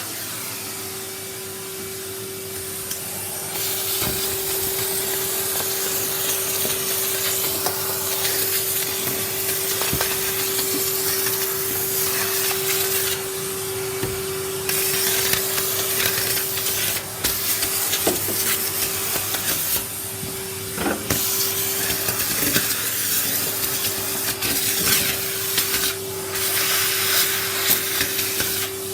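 Vacuum cleaner running with a steady motor whine over a rushing air noise that dips briefly now and then.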